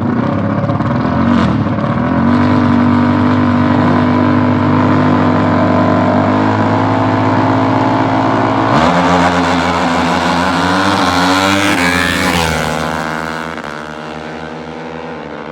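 Four-stroke dirt bike engines held at steady high revs, then launching about nine seconds in. The pitch climbs hard for a few seconds, then falls and fades as the bikes run away down the strip.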